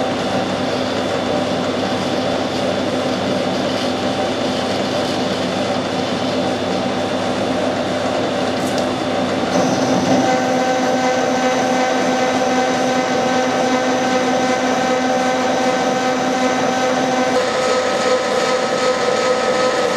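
Metal lathe running steadily, turning down a workpiece, with a steady machine hum; about halfway through its mix of tones shifts to a new set of steady notes.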